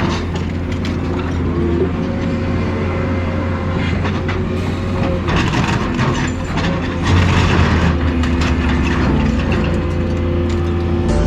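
Heavy demolition machine's engine running steadily, with repeated metal knocks and crunches as it tears into scrap cars.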